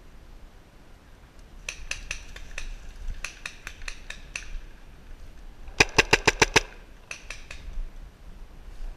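Paintball markers firing in the woods: scattered pops, then a rapid string of about seven loud shots about two-thirds of the way in, followed by a few more pops.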